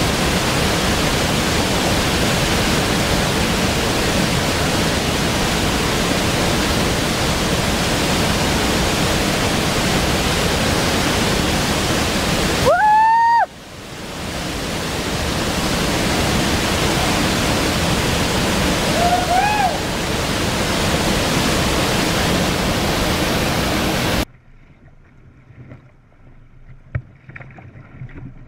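Waterfall roaring steadily as the river pours over a rock ledge. About halfway through, a person's shout rises over the roar, and a shorter shout follows later. The roar cuts off suddenly near the end, leaving only faint sounds.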